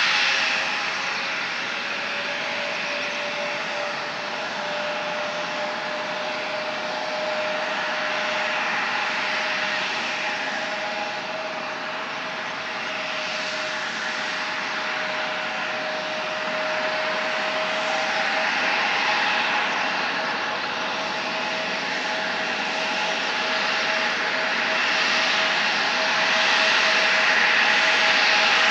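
Embraer E-Jet's twin GE CF34 turbofans running at idle: a steady jet whine with a held mid-pitched tone over a hiss, growing somewhat louder near the end.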